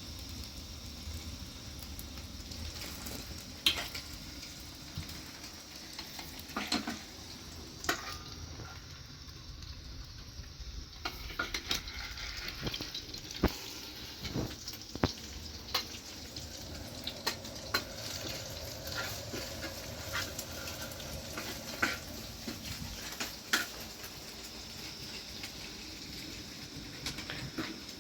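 Cooking sounds: a steady sizzling hiss with scattered sharp clinks and knocks of pots and utensils.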